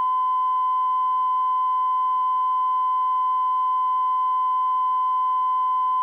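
Steady 1 kHz test tone, the line-up tone recorded between spots on a broadcast commercial tape, held at one unwavering pitch.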